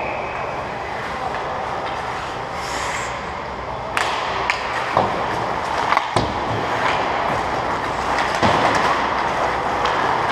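Hockey skates scraping across the ice during play, with several sharp clacks of sticks and puck, a cluster between about four and six seconds in and another near the end.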